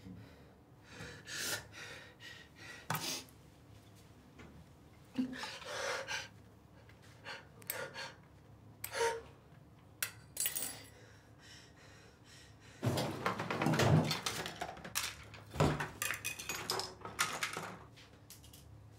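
Irregular clinks, knocks and rustles of small objects being handled, with a louder, denser stretch of clattering about thirteen to fifteen seconds in.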